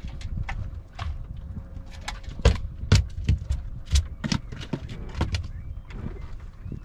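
Irregular sharp clicks and knocks from handling gear and fish at the bow of a fishing boat, over a steady low rumble, with a faint steady hum in the first few seconds.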